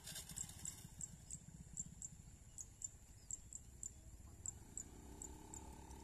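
Motor scooter engine running at low speed close by, a faint low pulsing, with a steadier hum rising in about five seconds in. Faint regular high ticks sound over it.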